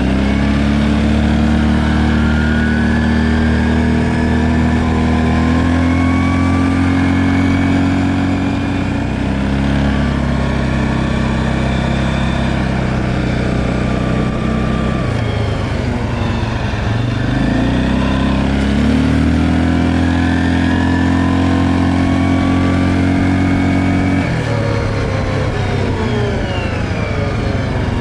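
Stels Leopard ATV engine and CVT running under way, the pitch climbing as it accelerates, then dropping twice as the throttle is closed and climbing back up again.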